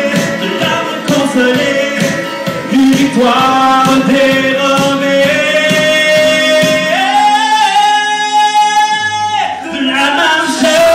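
A French pop song performed live: a male singer holds one long note that steps up in pitch partway through and breaks off about nine seconds in, over backing music.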